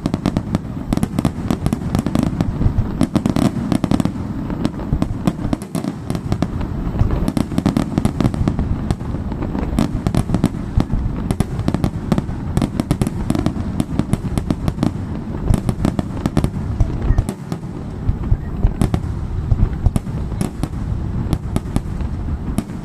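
Fireworks display: a dense, continuous barrage of rapid bangs and crackles over a steady low rumble.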